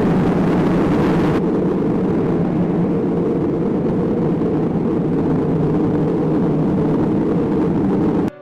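A loud, steady rumbling roar from a stage sound effect played over the hall's speakers during the baptism scene. It cuts off suddenly near the end.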